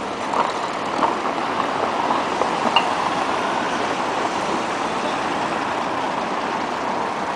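City street traffic noise: vehicles passing close by, including a car and a scooter, with a few short clicks in the first three seconds.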